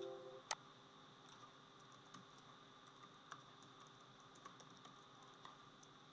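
Faint, irregular keystrokes on a computer keyboard as a short line of text is typed. At the start a musical chord fades out and a single sharp click sounds about half a second in.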